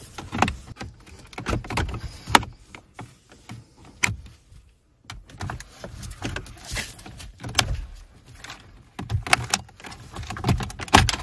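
Plastic trim tools prying out a dashboard air vent on a Mercedes C-Class W204: irregular clicks, taps and scraping of plastic on plastic, with a brief quiet pause about halfway through.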